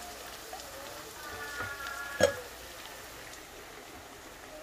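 Chilli paste and sardine sauce frying in a wok with a steady sizzle. A brief high tone comes about a second in, then a single sharp knock about two seconds in.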